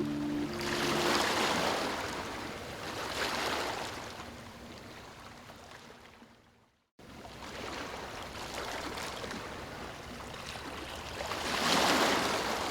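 Ocean waves surging in and washing back, each swell a rising and falling rush of surf. The sound fades away to silence about six and a half seconds in, then cuts back in abruptly, and a larger wave breaks near the end.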